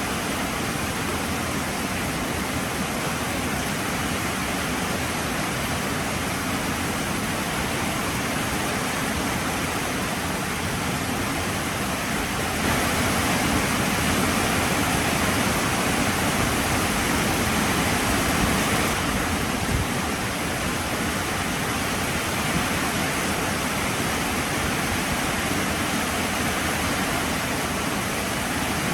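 Heavy rain falling steadily, an even hiss of water that grows a little louder for several seconds in the middle.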